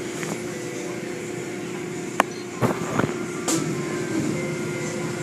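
Automatic car wash heard from inside the car: a steady hiss of water and foam spraying onto the car over a constant machine hum. A few sharp knocks stand out, one about two seconds in and several more close together around three seconds.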